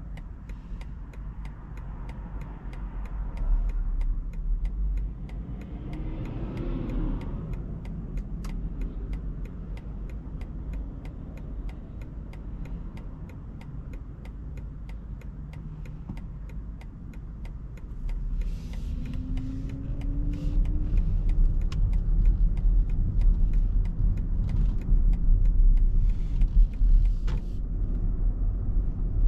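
Road and tyre rumble of a BMW iX3 electric SUV on the move, growing louder about two-thirds of the way in as speed picks up. Two brief rising whines come through, one near the start and one in the middle.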